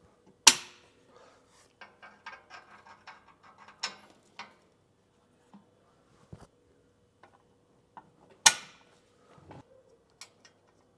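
Steel bolts clinking and tapping against a steel crossmember bracket as they are pushed through its holes by hand: a sharp metal click about half a second in and another about eight seconds in, with a patter of small ticks between.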